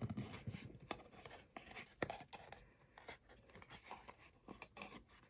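Faint, scattered rustles and light taps of a cardboard trading card box and card pack being handled and opened by hand.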